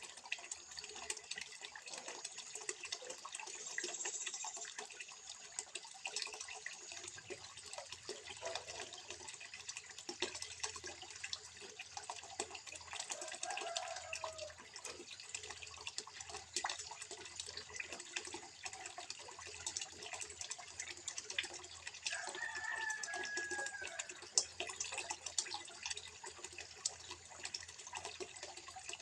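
Water trickling into a small fish pond: a steady splashing patter of many small drips.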